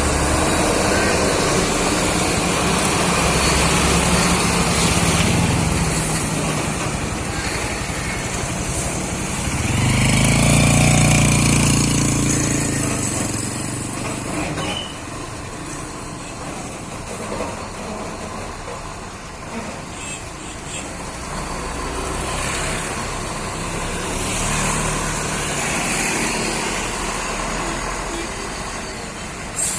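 Heavy Scania truck engine running as the rig moves slowly, its low engine note swelling to its loudest about a third of the way in, then fading.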